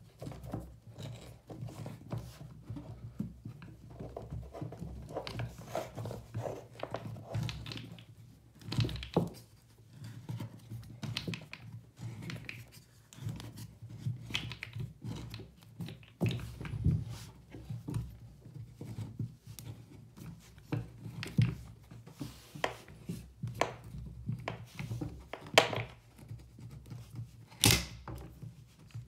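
Hand-held Irwin pipe cutter being spun around and tightened on a plastic Flowtite shutoff valve collar: irregular scraping and clicking as the cutting wheel scores the plastic, with a few louder knocks from the tool and fitting being handled.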